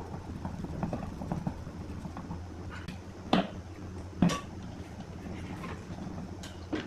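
Hard objects being handled on a workbench: a few light knocks and clinks, with two louder knocks in the middle and another near the end, over a steady low hum.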